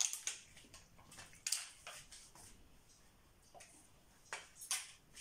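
Faint, scattered light clicks and rustles, a few short ones near the start, around a second and a half in, and again around four and a half seconds: small kitchen items being handled.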